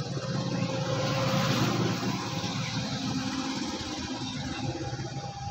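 Motor vehicle engine running with a steady low rumble, growing louder about a second in.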